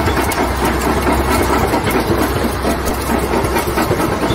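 Caterpillar bulldozer running: a steady low engine drone under dense clanking and rattling of its steel tracks.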